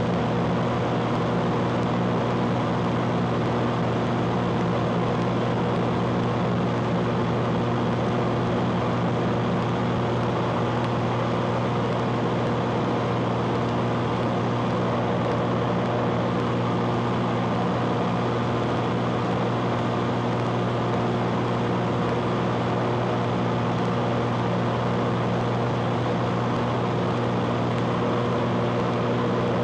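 Cessna T210's turbocharged six-cylinder engine and propeller in steady cruise, a constant drone with a few steady tones over a rushing hiss of airflow.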